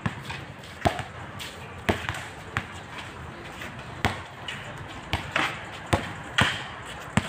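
Basketball dribbled on a concrete court: a string of sharp bounces, roughly one a second and unevenly spaced.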